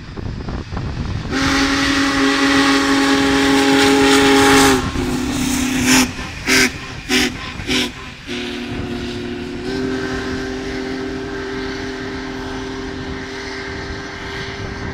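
Union Pacific Big Boy No. 4014's steam whistle blowing a long chord with loud steam hiss, then four short toots. After that a softer held chord runs on while the train passes.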